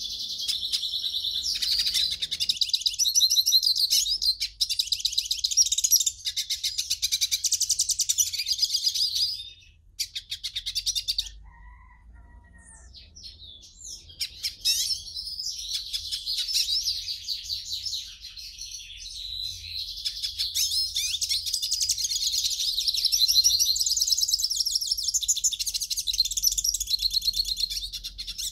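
European goldfinch singing: a fast, continuous run of high twittering and trilling notes. The song breaks off for a few seconds about a third of the way in, then starts up again.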